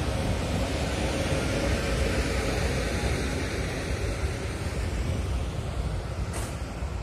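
ČD Railjet passenger train pulling out of the station, a steady rumble of wheels on rail with a faint hum, easing off near the end as it leaves.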